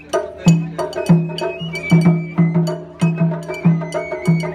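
Live Japanese festival float hayashi music: a high bamboo flute melody of held, stepping notes over taiko drum beats about twice a second, with sharp clicking strikes.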